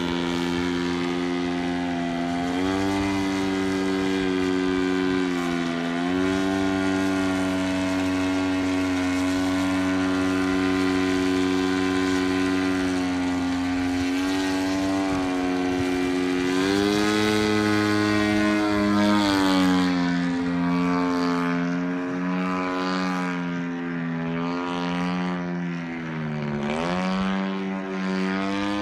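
DLE 120 twin-cylinder two-stroke gas engine of a large radio-controlled Yak 55M aerobatic plane, running steadily in flight with its propeller buzz. Its pitch dips and comes back up several times, most sharply about three-quarters of the way through and again near the end.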